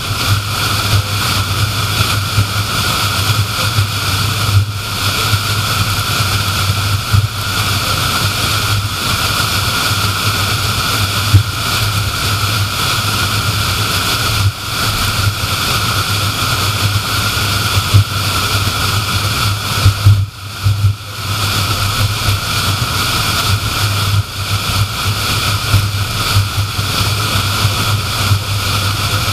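Steady road and tyre noise of a car cruising on a highway, with a constant low hum underneath; the sound dips briefly about two-thirds of the way through.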